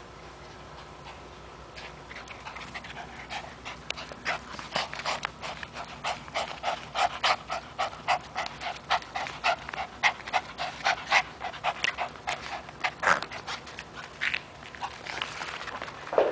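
Chihuahua terrier panting quickly and evenly, about three breaths a second, while tugging on a rope toy; the panting builds up about two seconds in and fades near the end. A brief sharp sound comes right at the end.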